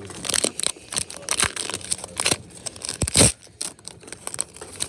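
Foil wrapper of a Pokémon trading-card booster pack crinkling and being torn open by hand, with irregular crackles and rustles as the cards are pulled out. A louder crackle with a dull thud comes about three seconds in.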